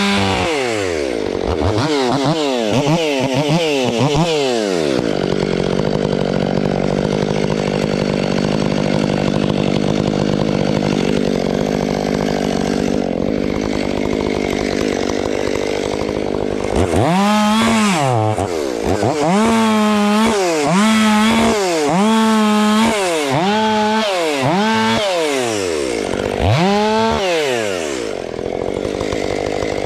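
Ported Stihl 500i chainsaw, a fuel-injected engine, revved hard several times in quick succession, then held steady under load in a cut for about ten seconds. It is then blipped to full revs about once a second, nine or so times, and settles back into a steady run near the end.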